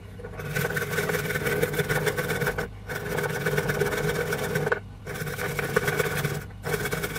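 Fresh ginger root being rubbed fast against a stainless-steel hand grater, a quick run of scraping strokes broken by three brief pauses.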